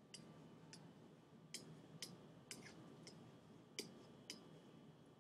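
Faint, short clicks, about seven of them spaced irregularly over five seconds, with near silence between.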